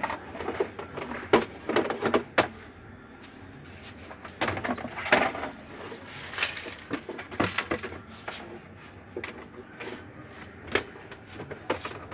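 Scattered clicks and knocks of a laptop being handled and fitted back together, a sharp one every second or two.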